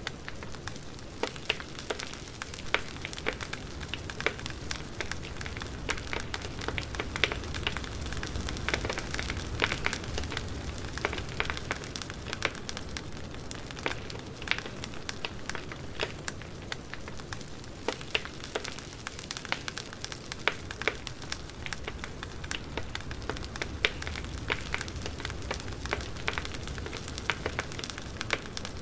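Campfire burning with steady crackling: many irregular sharp pops and snaps over a soft hiss and a low rumble of flames.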